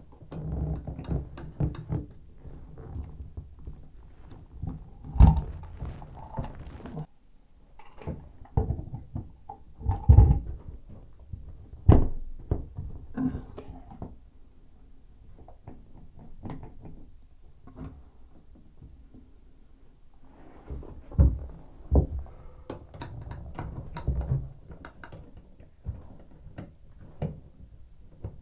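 Irregular knocks, thunks and small clicks of a chrome tub spout being handled and fitted against the tub/shower surround, with a handful of sharper knocks among softer handling noise.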